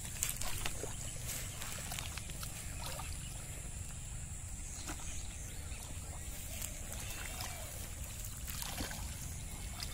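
Hands and feet sloshing and splashing in shallow muddy water while groping for fish, with scattered small splashes and drips, over a steady low rumble and a thin high steady tone.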